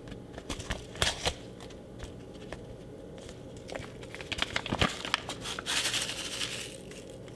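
Seasoning package being handled: crinkling and rustling with scattered light clicks and taps, busiest in the second half.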